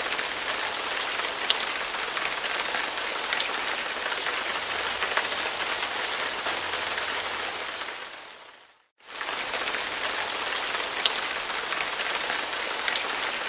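Steady rain falling, an even hiss with scattered drop ticks. It fades out about eight and a half seconds in, then comes back a moment later.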